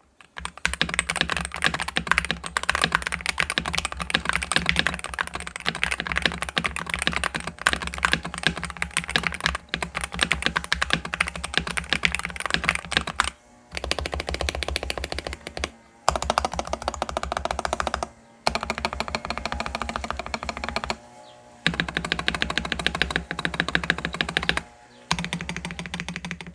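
Fast, continuous typing on a custom SK87 mechanical keyboard, a dense stream of key clacks broken by a few brief pauses in the second half.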